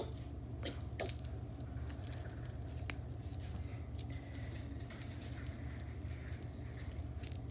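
Cat biting and gnawing at a red lobster held in a hand: soft wet clicks, smacks and rustles, over a steady low hum.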